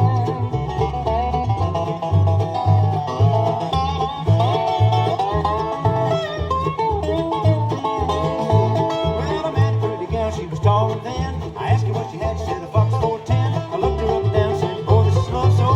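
Live bluegrass band playing an instrumental break with no singing: banjo and guitar over a steady alternating bass line.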